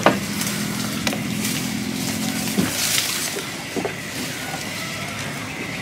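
A small engine hums steadily and stops about two and a half seconds in. Bamboo leaves rustle around three seconds in as they are grabbed, with a few sharp knocks on the wooden boat.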